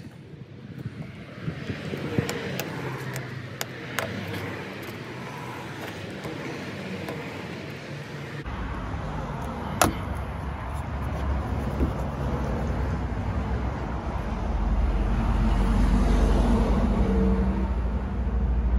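Steady road traffic noise that builds to its loudest in the last few seconds. A few sharp clicks come through as a plastic scraper lifts dried dent-puller glue off a car's door panel.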